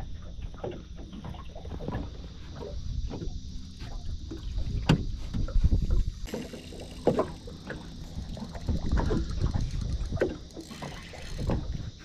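Small waves slapping and knocking against an aluminium boat hull, with irregular thumps on the deck; a louder thump with a sharp click about five seconds in.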